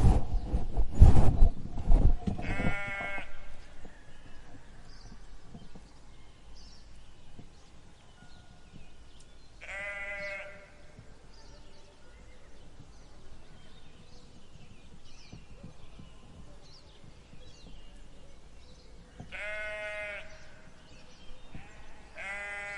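Sheep bleating: four separate drawn-out bleats spread across the stretch, with long gaps between them. Heavy low thumps and rumble in the first two seconds are the loudest sound, and faint short high chirps are heard now and then.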